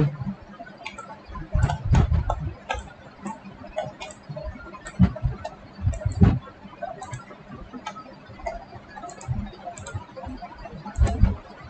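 Computer mouse clicking irregularly, short sharp clicks with a few duller low knocks among them.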